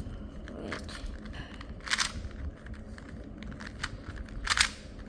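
Plastic 2x2 speed cube being turned quickly by hand during a timed solve: irregular clicks and clacks of the layers, with two louder clacks about two seconds in and near the end.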